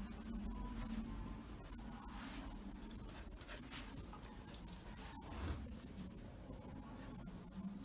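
Insects trilling steadily in one continuous high-pitched band.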